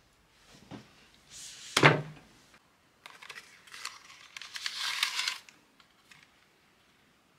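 Handling of a cardboard chocolate box: a sharp knock on the table about two seconds in, then a couple of seconds of crinkly rustling as the foil inner wrap is opened and the plastic tray is slid out.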